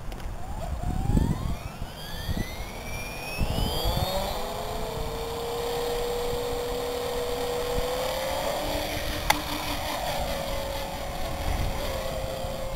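E-Sky King V4 electric RC helicopter spooling up: the motor whine and rotor hum rise in pitch over the first four seconds or so, then hold steady at flying speed as it lifts off. A single sharp click sounds about nine seconds in.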